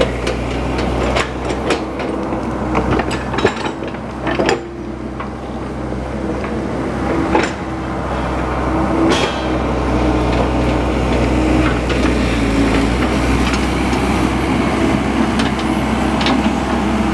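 Diesel engine of a compact tracked excavator running steadily. Sharp knocks and clanks come every second or two in the first half.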